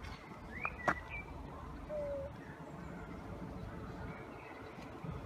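Faint bird calls, a few short chirps and whistles, over a low background rumble, with a sharp click just under a second in.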